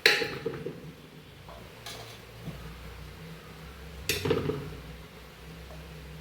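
Metal kitchen utensils knocking and clinking against cookware: a sharp clank at the start, a lighter click about two seconds in, and another clatter about four seconds in.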